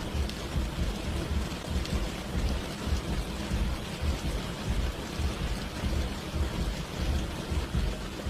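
Heavy rain falling steadily in a storm, with a continual low rumble underneath.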